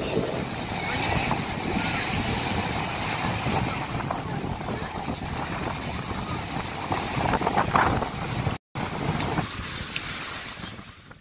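Surf washing onto a sandy beach, with wind rumbling on the microphone and beachgoers' voices in the background. The sound drops out for an instant near the end, then fades away.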